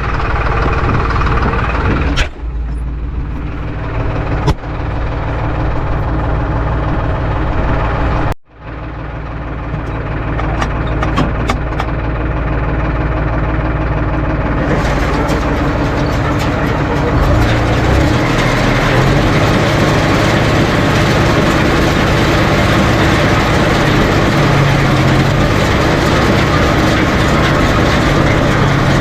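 Farm tractor's diesel engine running steadily. The sound drops out for a split second about eight seconds in, grows brighter from about fifteen seconds, and the engine note shifts a few seconds later.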